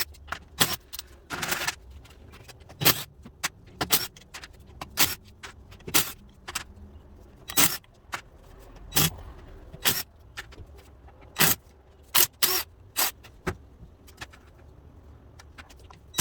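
Hand tools clinking on a car transmission as it is unbolted: a string of sharp, irregular metallic clacks about once a second, over a faint steady low hum.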